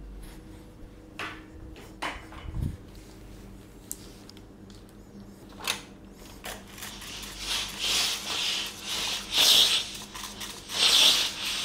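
Cordless steam iron in use on an ironing board: a few light knocks and clicks as it is handled and set down, then, from about halfway, several short hisses of steam as it is pushed over the clothes.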